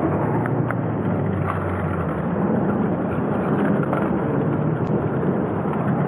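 Steady background din of a crowded exhibition hall, with a low hum underneath.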